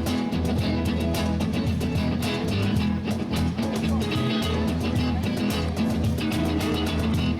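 Live band playing an instrumental break between sung verses: electric guitar and bass guitar over drums keeping a steady beat.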